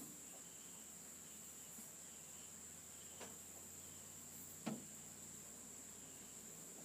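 Near silence with a faint, steady high-pitched whine or trill, and two short clicks about a second and a half apart, the second louder.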